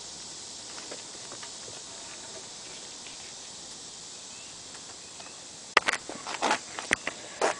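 Steady high hiss, then from about six seconds in a quick run of sharp clicks and knocks, like a homemade PVC launcher and its foam-and-tape rocket being handled and loaded.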